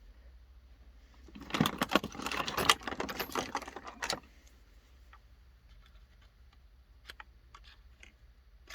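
Small metal objects being handled: a dense run of clicks and rattles for about three seconds, then a few scattered light clicks.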